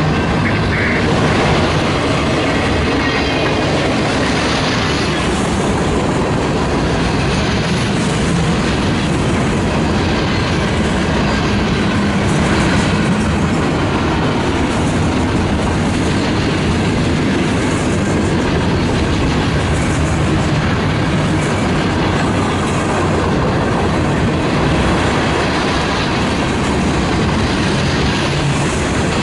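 A long Union Pacific mixed freight train's cars rolling steadily past at speed, a loud, even noise of wheels on rail.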